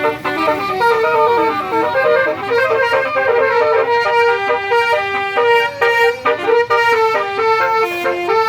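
Basuri telolet horn on a tourist bus playing a fast melody of separate stepped notes.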